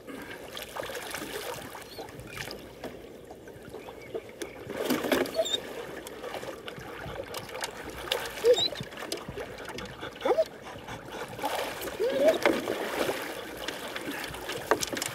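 Water splashing and sloshing at a boat's side as a hooked wels catfish is grabbed and landed by hand, with scattered sharp splashes and knocks, the loudest in the second half.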